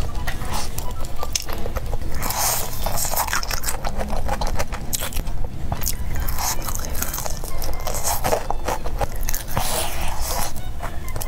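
Close-up eating sounds: biting into crispy batter-coated fried chicken and chewing it, the crust crunching in several clusters about two, six and nine seconds in.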